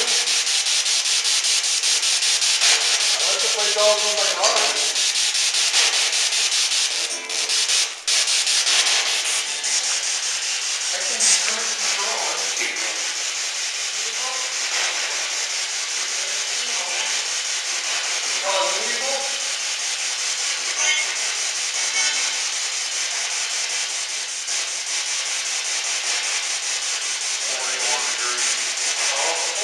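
Spirit box sweeping radio frequencies through a small external speaker: a steady, loud hiss of static with brief fragments of broadcast voices breaking through every few seconds. One fragment is captioned by the investigators as a spirit saying 'keep them'.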